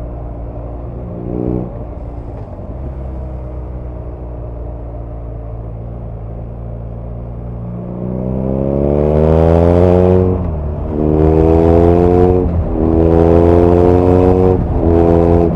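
BMW R nineT's 1170 cc air/oil-cooled boxer twin, heard from the rider's seat, at first cruising at a steady, slowly easing note. About halfway through it accelerates hard, its pitch climbing and dropping at three upshifts in quick succession.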